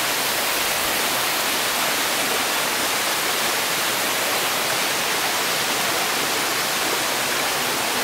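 Waterfall's water rushing, a steady, even hiss.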